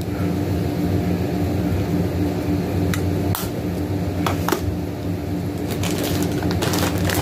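A steady low machine hum, with light clicks and rustles of small packaged items being handled, a few in the middle and more toward the end.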